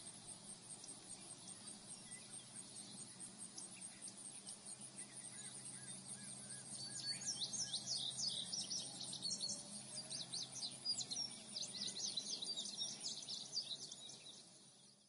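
Faint outdoor nature ambience: a steady, fast, high insect trill, with quick chirping bird calls joining about halfway through and getting louder, then fading out near the end.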